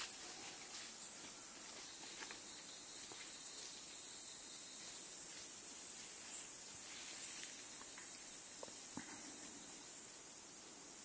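Quiet forest ambience: a steady high-pitched hiss with a few faint rustles and clicks. No indri call is heard.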